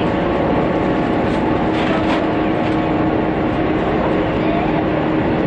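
Running noise inside a 415-series electric train car travelling at about 80 km/h: a steady rumble of wheels on rail with a steady hum running through it.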